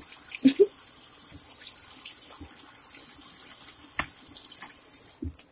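Bathroom sink faucet running over fish in a plastic container as hands rinse them, a steady splashing hiss that cuts off near the end. A short vocal sound about half a second in, and a sharp click about four seconds in.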